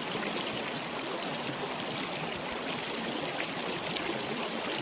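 Small stream flowing steadily, an even rush of running water.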